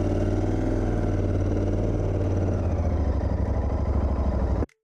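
Royal Enfield Continental GT 650's 648 cc parallel-twin engine running steadily at idle; about three seconds in its low beat grows rougher and more uneven. The sound cuts off abruptly just before the end.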